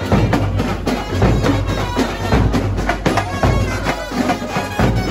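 Live Indian brass band playing: a reedy saxophone melody with bending, ornamented notes over steady, dense drumming.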